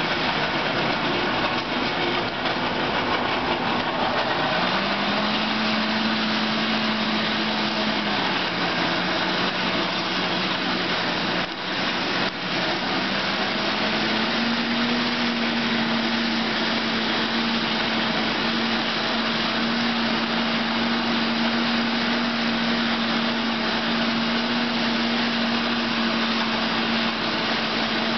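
Champion coal forge's blower running, a steady whine whose pitch sags and climbs back a few times as the blower slows and speeds up, over a rush of forced air through the burning coal fire. A couple of small knocks come about halfway through.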